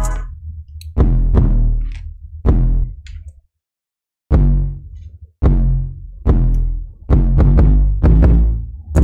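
Electronic beat being worked on in a music program: separate punchy hits, each with deep bass and a ringing tail. It cuts out completely for just under a second about three and a half seconds in, then starts again.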